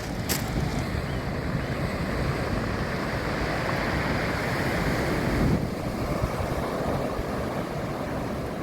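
Sea waves surging in and breaking on the shore, the wash swelling to a peak about five seconds in, then easing off.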